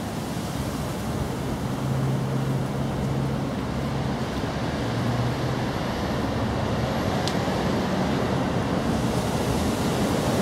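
Steady outdoor background noise: an even rush with a low hum underneath.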